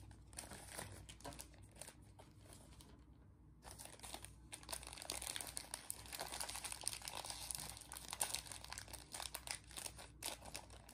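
Crinkling and tearing of a plastic-film pouch of Lemona vitamin C powder sticks being handled and opened by hand. There are scattered light crackles for the first few seconds, then dense, continuous crinkling from about four seconds in.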